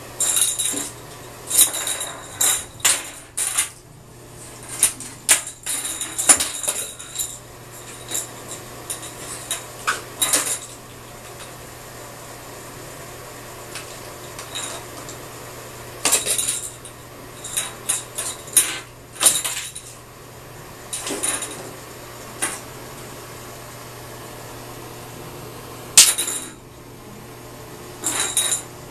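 A cat batting a small plastic toy and a plastic cup around an empty bathtub: the toys skitter, rattle and knock against the tub in bursts of clattering, with pauses between, and one sharper knock near the end.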